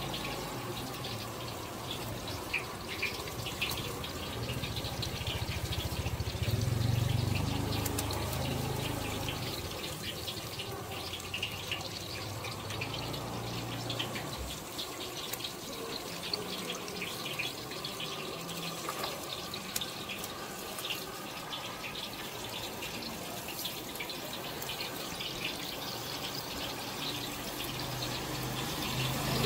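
Sauce-glazed chicken skewers sizzling and crackling on a hot wire grill. A low rumble swells for several seconds in the first half.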